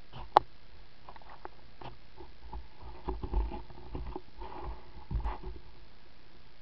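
Handling noise from a body-worn action camera being jostled: scattered clicks and knocks, a sharp click about a third of a second in, and low rumbling bumps around three seconds and five seconds in.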